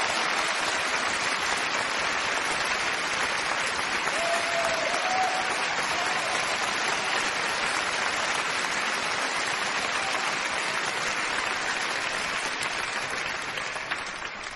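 Large concert audience applauding steadily, with a brief shout about four seconds in. The clapping dies away near the end.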